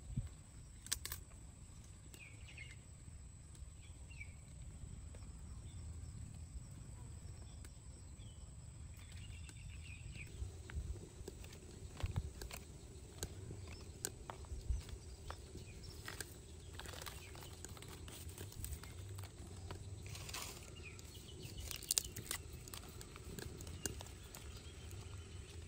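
Snail shells, chilies and leaves being handled and placed in a bamboo basket: scattered light clicks and rustles that come more often in the second half, over a low steady outdoor rumble with a few faint chirps near the start.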